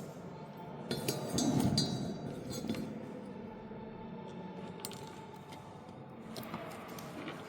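Light metallic clinks and taps from small tools and parts being handled at a workbench. A cluster of ringing clinks with a soft thump comes about a second in, then single taps scattered through the rest.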